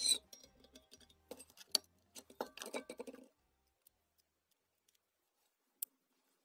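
Small clicks, taps and rattles of hands handling a lamp's metal reflector, ceramic bulb socket and wiring. The handling noise is busy for about three seconds, then stops, leaving only a few faint ticks and one sharp click near the end.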